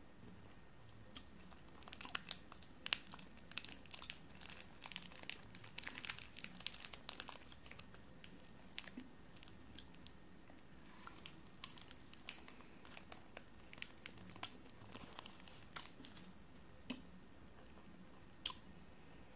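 Foil candy wrapper crinkling and crackling as it is unwrapped by hand: a dense run of small crackles for several seconds, then sparser crackles, and a few single clicks near the end.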